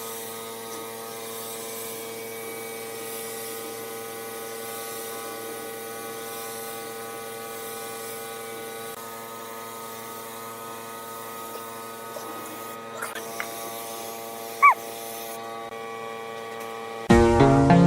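A small electric motor humming steadily with several held tones. A short, high rising chirp comes near the end, and then plucked-string music starts.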